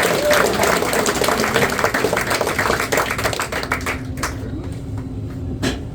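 Audience applauding, many hands clapping; the clapping thins out and dies away over the last couple of seconds.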